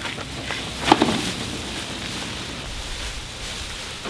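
Large plastic bag crinkling and rustling as the whole pig inside it is lifted and carried, with a short thud about a second in.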